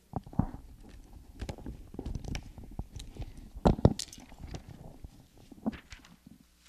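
Handling noise from a handheld microphone: irregular rubbing and knocking as it is moved about at the podium, with two sharp knocks close together about four seconds in.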